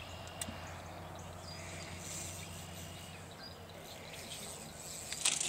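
Evening lake ambience: a steady low background hum with a few faint, short bird chirps. A brief clatter comes about five seconds in.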